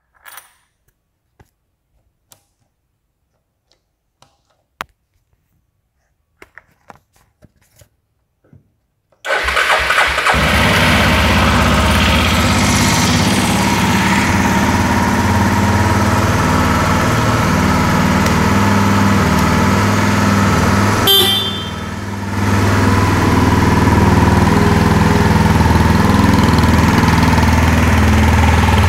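A few faint clicks as the ignition key is turned and the bike is handled. About nine seconds in, the Suzuki Djebel XC 250's single-cylinder four-stroke engine starts suddenly and settles into a steady idle, with a brief dip in level a little after twenty seconds.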